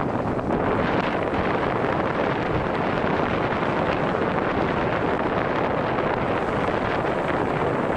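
Strong wind buffeting the microphone in a steady, loud roar, with the sea's surf blended in underneath.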